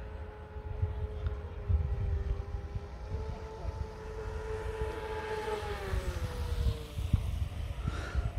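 Radio-controlled speedboat's motor whining steadily as the boat runs across the pond; the whine drops in pitch and fades out near the end. Low gusty wind rumble on the microphone underneath.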